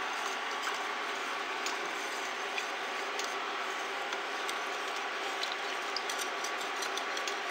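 Plastic spatula stirring and scraping the bottom of a stainless steel pot of hot borax solution, with small scattered clicks over a steady hiss.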